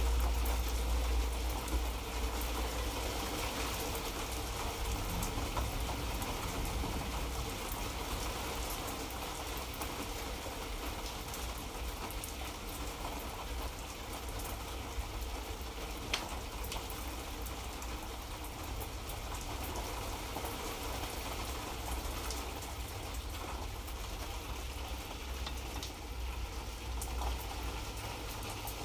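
Light rain falling, a steady patter of many small drops over a low rumble. Just past the middle, one sharper drop tap stands out.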